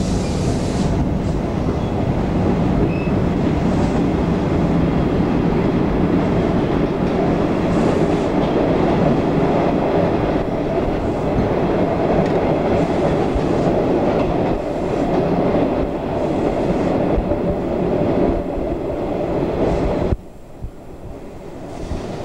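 Electric suburban train running, heard from inside the carriage: a steady rumble of wheels on rail and running gear. The noise drops abruptly to a much quieter level about twenty seconds in.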